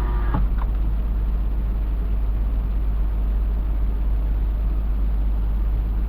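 Car engine idling steadily while warming up, a constant low rumble. A short knock comes about half a second in.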